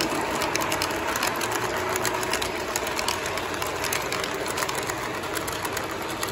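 O gauge model freight train rolling past on its track: a steady rumble from the metal wheels, with fast irregular clicking as the cars pass over the rail joints, slowly fading as the train moves away.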